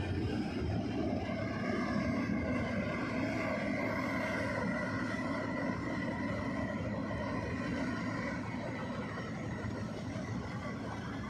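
Steady drone of a ro-ro passenger ferry's engines and propellers as it reverses toward its berth: a low rumble with a steady high whine on top, easing slightly in the later seconds.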